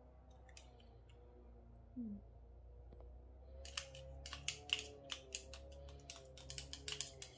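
A knife clicking and scraping against a garlic press as crushed garlic is cleared from it: a quick, irregular run of sharp clicks that starts about halfway through, over a low steady hum.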